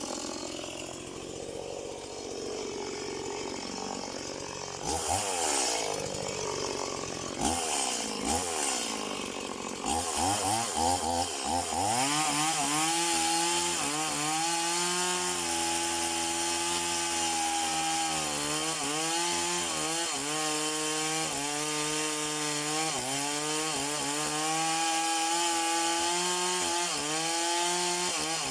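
Stihl MS180 two-stroke chainsaw idling, revved briefly twice about five and seven seconds in, then run up to full throttle and held there. Its pitch dips and recovers again and again as the chain cuts into a tree.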